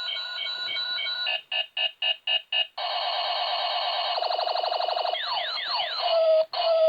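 Electronic alarm cycling through its tones: a repeating chirp, then five separate beeps, then a steady warble, a fast trill and a run of rising sweeps, cut by a brief gap near the end.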